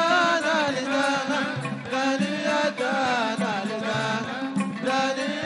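Man singing a long, wavering Arabic melodic line to his own oud playing, in an Omani bar'a song.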